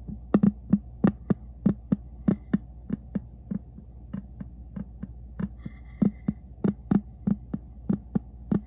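Heartbeat thumps played through a small loudspeaker, the output of a homemade electret-microphone stethoscope amplifier, heard as a quick, uneven string of soft thumps, about three a second, over a steady electrical hum.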